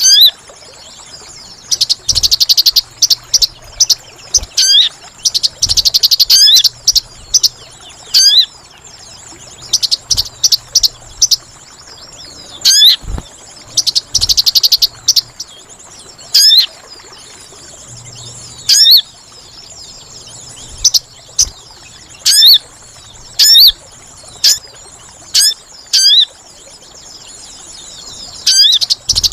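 Lure recording of sogon bird calls: loud, sharp, high chirps repeated in quick series, broken every few seconds by a buzzy rattling trill lasting about a second. A faint steady high insect whine sits under it.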